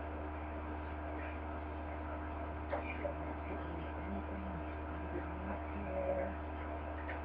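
Steady low electrical hum, with a faint click or two.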